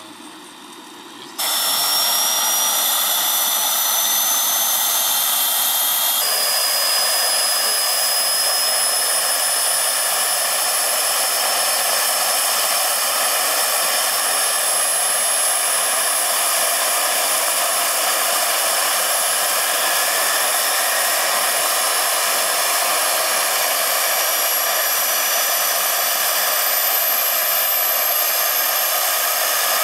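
Model gas turbine (Jakadofsky Pro 6000) of a large scale RC Gazelle helicopter running on the ground, a loud steady whine and hiss. It comes in suddenly about a second and a half in, and its high whine tones rise slowly in pitch.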